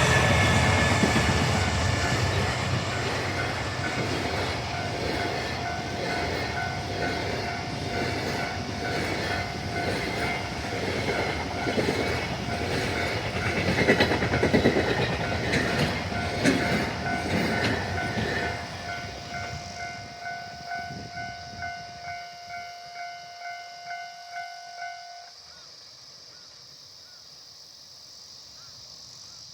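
A freight train hauled by a DF200 diesel locomotive passing at a level crossing: its wagon wheels clack rhythmically over the rail joints and fade as the train moves away. A steady level-crossing warning bell rings over the train and cuts off shortly before the end, once the train has cleared the crossing.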